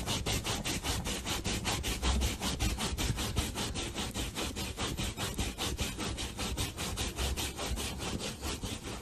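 A pug digging with its front paws at couch fabric: rapid, even scratching strokes, about five a second, kept up without a break.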